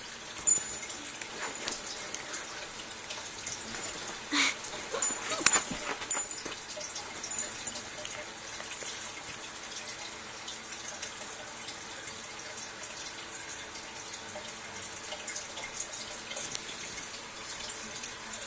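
German Shepherd puppy and small dog scuffling in play, with a few sharp knocks about four to six seconds in over a faint steady background.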